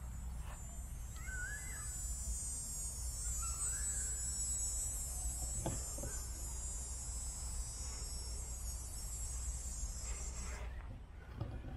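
A steady, high-pitched insect buzz that cuts off suddenly near the end. Two short chirps come in the first four seconds, and there is one sharp click about six seconds in.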